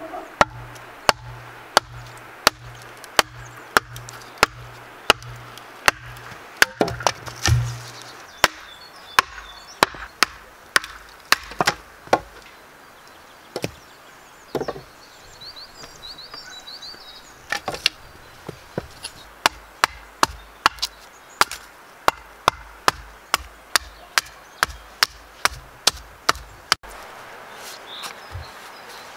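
Wooden mallet beating a splitting tool into an upright log, splitting it into rough boards: sharp woody blows about one and a half a second, broken by a pause with a few scattered knocks near the middle, then taken up again.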